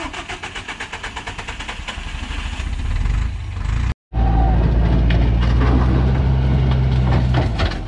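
Loaded log truck's diesel engine working to pull the bogged-down truck out of deep mud: first a rhythmic pulsing that grows louder, then, after a brief dropout, a strong steady engine note under heavy load that eases near the end.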